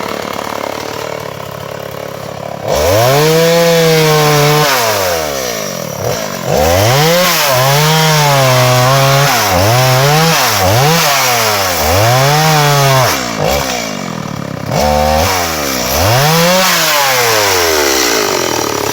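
Two-stroke chainsaw running, lower at first, then revved hard about three seconds in and worked up and down repeatedly, its engine note rising and falling as it cuts into fallen timber.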